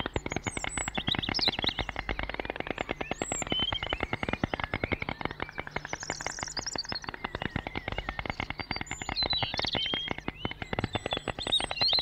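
Small birds chirping in short, scattered calls over a steady background of rapid, dense clicking.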